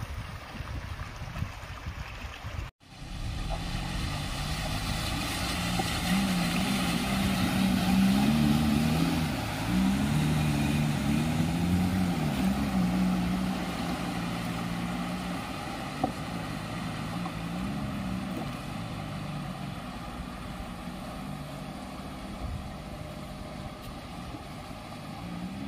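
Maruti Gypsy 4x4 engine revving up and down as it wades through shallow river water, with water rushing and splashing around it. The sound drops out for a moment about three seconds in, and the engine is loudest a few seconds later, then eases off.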